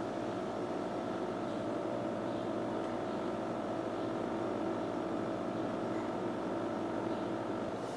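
A steady mechanical hum with a few held tones, unchanging throughout.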